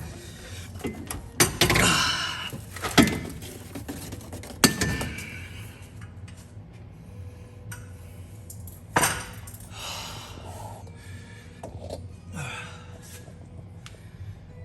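Metal exhaust pipe clanking, knocking and scraping as the stock exhaust is worked loose and pulled out from the vehicle, with several sharp knocks in the first five seconds and another about nine seconds in.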